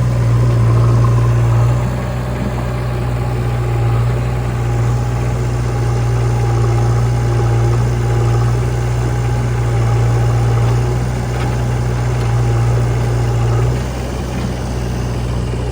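Heavy diesel engines of a backhoe loader and tractor running during loading: a steady low drone that swells and eases every couple of seconds, dropping back slightly near the end.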